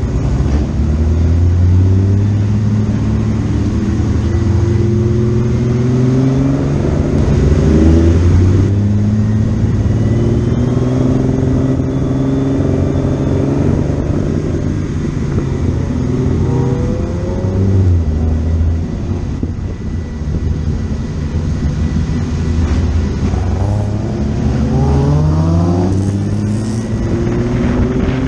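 Historic race car engine accelerating hard, its pitch climbing and then dropping with each gear change, several times over.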